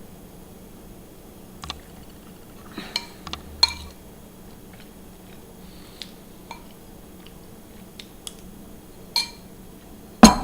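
Spoon clinking and scraping against a bowl of cooked rice in scattered light taps, with one loud knock near the end.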